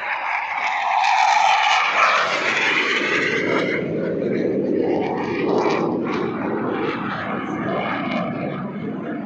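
Airplane flying past during an airshow display. Its engine noise is loudest in the first few seconds, with its pitch falling, then settles into a lower steady rush.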